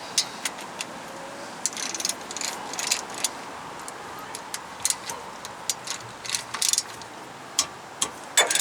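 Socket ratchet wrench being worked, its pawl clicking in irregular runs of sharp clicks. Half the tab of its reversing blade is broken off, which the owner says makes the pawl sometimes miss.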